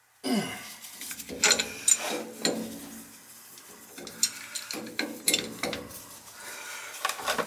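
Hand tools working on an old heating-oil tank's fittings: a run of irregular metallic clicks, knocks and scraping, with a few louder clanks.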